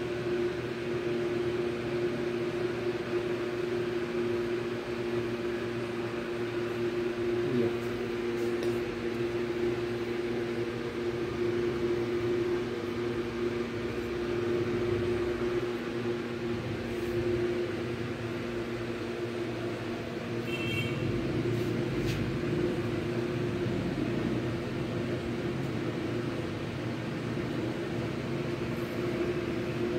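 Steady mechanical hum at one constant pitch, with a brief high beep about two-thirds of the way through.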